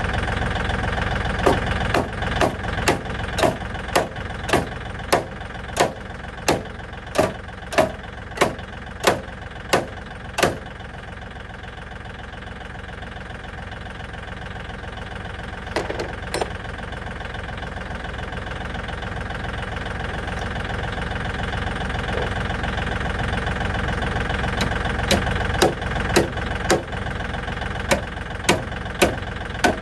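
Tractor engine idling steadily, with two runs of sharp, evenly spaced knocks, about one and a half a second: one from a second or two in to about ten seconds in, and one starting near the end.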